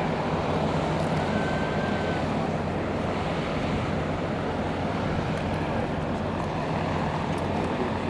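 Steady low hum of the lake freighter Arthur M. Anderson's machinery as it passes close by, over the rushing wash of its bow wave and wind on the microphone. A faint short whistle sounds about a second in.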